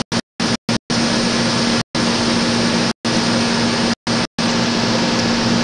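Hurricane wind rushing as a steady, loud noise, broken several times by brief dropouts where the sound cuts out completely.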